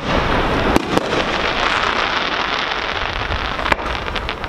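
Fireworks display: aerial shells going off with sharp bangs, two close together about a second in and another near the end, over a steady noise from the ongoing show.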